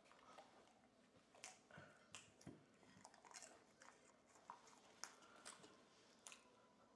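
Dog chewing snack pieces fed to it by hand: faint, irregular crunches and wet mouth clicks, a few every second.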